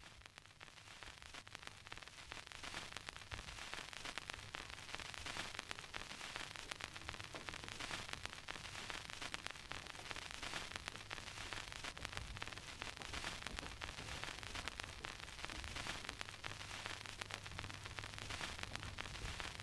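Steady crackling hiss like static, with a low hum beneath it, fading in over the first couple of seconds and then holding steady.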